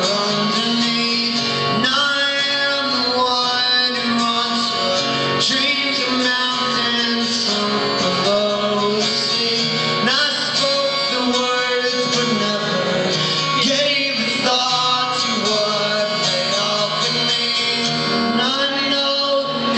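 Steel-string acoustic guitar strummed through a song, played live, with singing over it.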